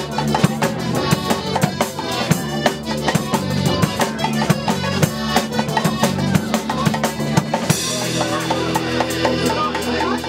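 Live folk band playing a tune: tuba and bass guitar holding a low line under a driving drum kit beat, with melodeon. About eight seconds in, a cymbal-like wash comes in, the drum beat thins out and held notes carry on.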